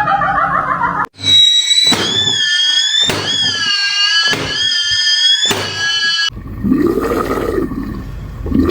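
A high-pitched squeal in five stretches of about a second each, its pitch wavering up and down. About six seconds in it gives way to a lower sound that rises and falls in pitch, twice.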